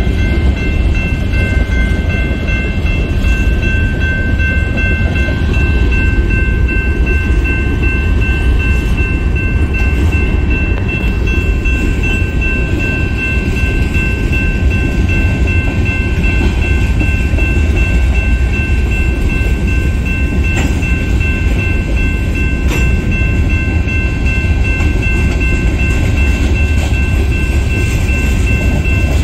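Covered hopper cars of a long freight train rolling past a grade crossing: a loud, steady low rumble of steel wheels on rail. A few steady high ringing tones sit over it.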